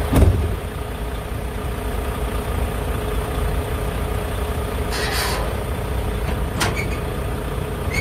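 Semi truck's diesel engine running with a steady low rumble. There is a thump just after the start, a brief hiss about five seconds in, and a sharp click near seven seconds.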